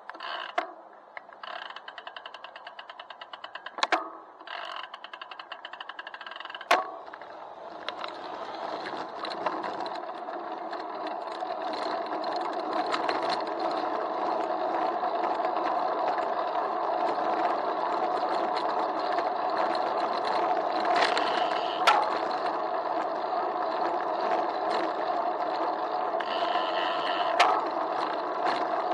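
Sound from a handlebar camera in a waterproof housing on a moving bicycle. For the first few seconds there is a rapid, even ticking, typical of a rear freewheel while coasting, with a few sharp knocks. Then a steady muffled road rumble builds as the bike picks up speed, broken by occasional knocks from bumps.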